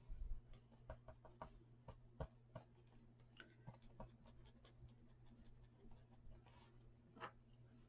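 Quiet, scattered light taps, clicks and rustles of paper and small cut pieces being handled during card making, over a faint steady low hum.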